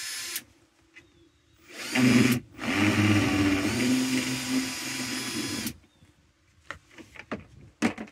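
Cordless drill driving screws into plastic cat-litter buckets: a short burst about two seconds in, then a longer run of about three seconds. A few short knocks follow near the end as the buckets are handled.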